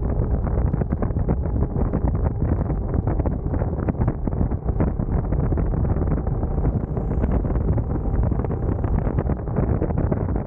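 Heavy wind buffeting on the microphone of a moving motorcycle, a loud steady low rumble with constant rapid flutter.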